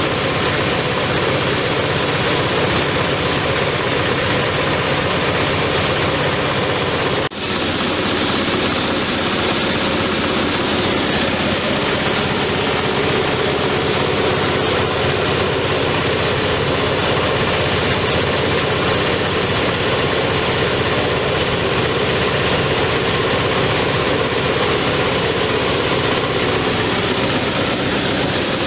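Dry coffee huller machine running steadily under power, a loud, even mechanical noise with a brief break about seven seconds in.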